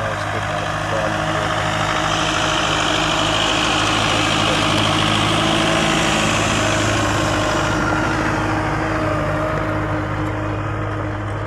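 Farm tractor's diesel engine running steadily under load while it pulls a tine cultivator through dry soil. It grows louder toward the middle as the tractor passes close, then eases off a little.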